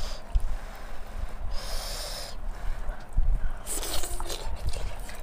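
Close-miked eating sounds: hands working rice and pork on a wooden plate, then a bite of pork being taken and chewed. Soft low bumps run through it, with brief hissing sounds about two and four seconds in.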